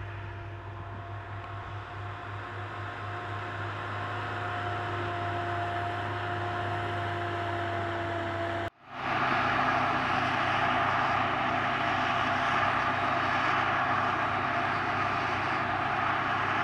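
Claas Jaguar forage harvester at work chopping whole-crop cereal silage, with a tractor running alongside: a steady machine drone with a high whine. About nine seconds in the sound cuts abruptly to a louder, rushing harvesting noise over the drone.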